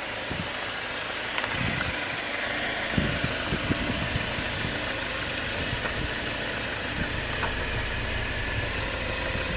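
2022 Jeep Wrangler Willys running at low speed as it crawls over a rock slab, with a low rumble that grows stronger about three seconds in. A few short low thumps come soon after.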